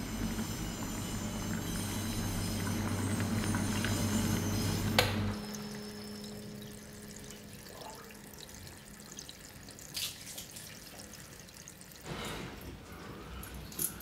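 A low rumbling drone swells and cuts off with a sharp click about five seconds in. A tap then runs into a ceramic sink basin, with a knock and louder splashing from hands in the water near the end.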